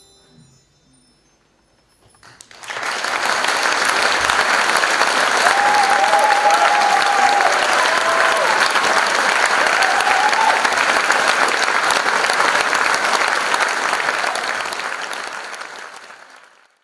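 Theatre audience applauding, breaking out about two and a half seconds in as the last notes die away, steady, then fading out near the end.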